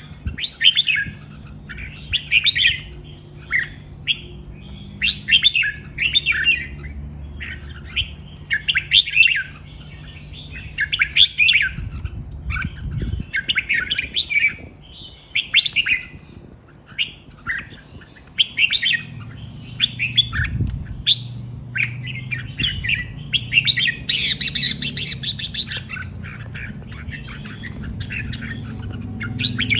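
Caged red-whiskered bulbul singing short warbling phrases, one every second or two, with a stretch of higher, denser chatter about three-quarters of the way through.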